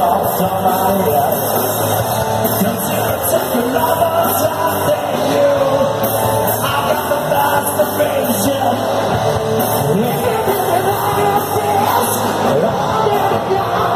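Live rock band playing loud: electric guitars, bass guitar and drum kit, with a male singer's vocal, heard from the audience in a hall.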